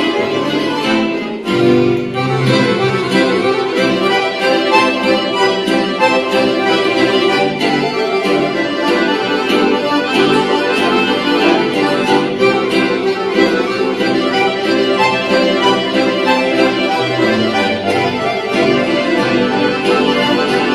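Two accordions playing a duet with acoustic guitar accompaniment, with a brief break in the music about a second and a half in.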